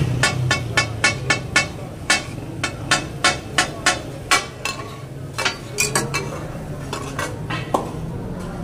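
Metal spatulas clanking rapidly on a large flat griddle (tawa) as meat is chopped and stirred, over a steady hiss of sizzling. The clanks come about three a second and thin out after about six seconds.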